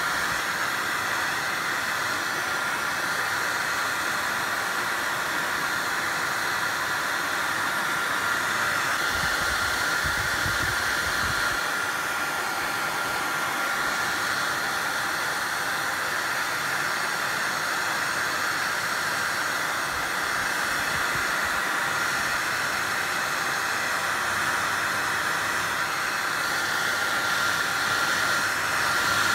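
Hot-air blower running steadily with an even rush of air and a constant motor whine, blowing over the stringy PLA mane of a 3D-printed lion to fluff it out. A short low rumble comes about ten seconds in.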